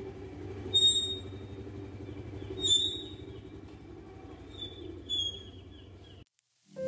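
Small motor scooter engine running as the scooter pulls away, its steady hum fading into the distance, with a few short high chirps over it. The sound cuts off suddenly near the end.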